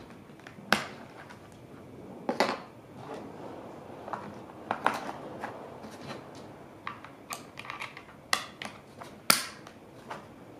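The plastic battery cover on the underside of an Elecom TK-FDM063 wireless keyboard is unlatched, lifted off and snapped back on. This makes a string of irregular sharp plastic clicks and scrapes, the loudest about a second in and again a little after nine seconds.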